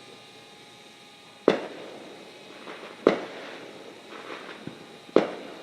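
Fireworks going off: three sharp bangs about a second and a half to two seconds apart, each followed by a short echoing tail.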